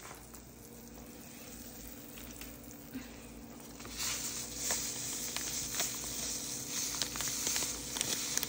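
Pot of sinigang broth simmering and bubbling on a stovetop, with a faint steady hum. About four seconds in, a plastic tamarind soup-mix packet rustles as the powder is shaken into the pot, and the grainy hiss grows louder.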